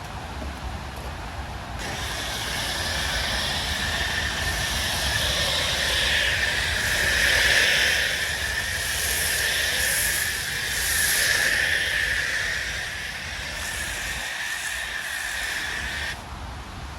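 Pressure-washer snow foam lance spraying foam: a steady hiss that starts about two seconds in and cuts off suddenly near the end.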